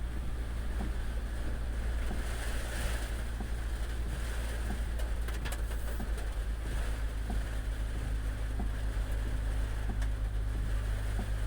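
Heavy rain falling steadily as a constant hiss over a strong low rumble, with a few sharp ticks about five seconds in.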